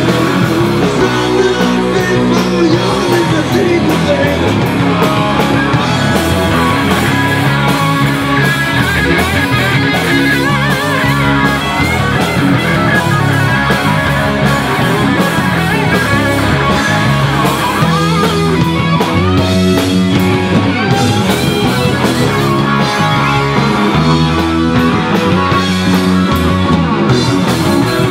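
Rock band playing loudly: electric guitars, bass guitar and drum kit.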